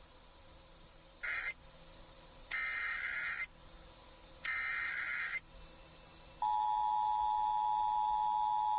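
Emergency Alert System broadcast tones: a short digital data burst, then two SAME header data bursts of about a second each, a second apart. About six and a half seconds in, the steady two-tone EAS attention signal starts, announcing a new tornado warning.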